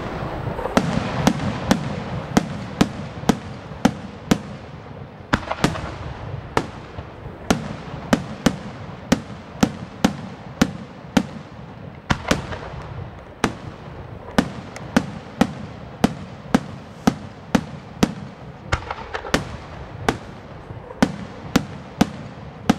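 Aerial firework shells bursting overhead in a steady run of sharp bangs, about three every two seconds, with crackling between the reports.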